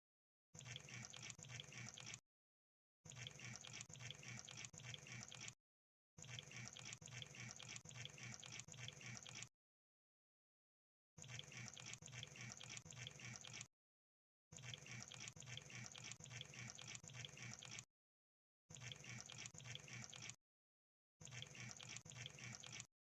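Crab sound effect: repeated bursts of rapid crackling ticks, each lasting one to three seconds, separated by short silent gaps.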